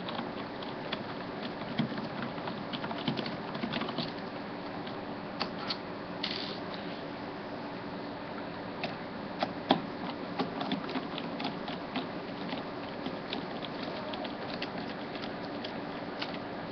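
Screwdriver backing small screws out of an IBM ThinkPad T42 laptop's bottom case: scattered small clicks and ticks as the driver and screws turn, over a steady low hum.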